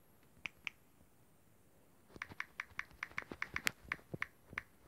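Key-press clicks of a phone's touchscreen keyboard as a message is typed: two clicks about half a second in, then a quick run of about a dozen from about two seconds in.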